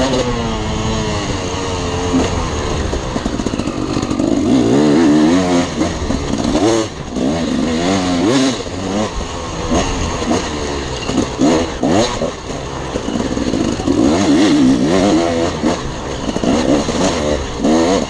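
Dirt bike engine under hard riding, its pitch rising and falling again and again as the throttle is opened and rolled off, with brief drops in revs around a third and two thirds of the way through.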